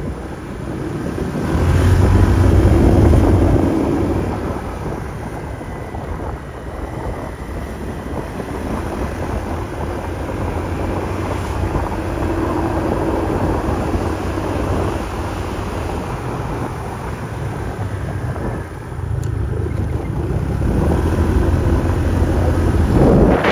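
Wind buffeting the microphone on a moving motor scooter, over the hum of the scooter's engine and road noise; the rumble swells in heavy gusts about two seconds in and again near the end.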